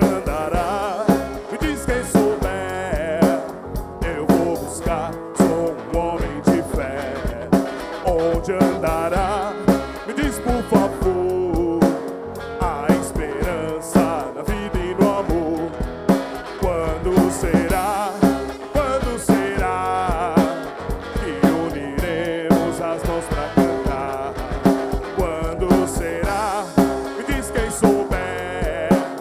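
A live rock band playing, with drum kit, electric guitars and bass guitar, and a singing voice over the music.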